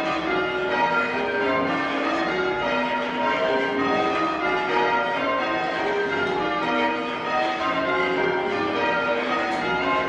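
A ring of six church bells, tenor 7-3-11 cwt in B flat, rung full circle on ropes in change ringing, the bells striking one after another in a steady even stream of overlapping notes. Heard from the ringing chamber below the bells.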